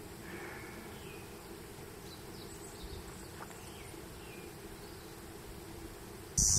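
Quiet outdoor ambience with scattered short, high chirps of small birds over a faint steady hum. Just before the end a much louder rush of noise starts abruptly.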